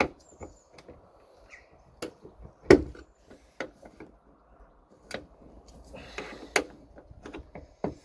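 Sharp clicks and knocks of tools working at the end fitting of a boot-lid gas strut to break it loose, with one loud knock a little under three seconds in and a brief scrape around six seconds in.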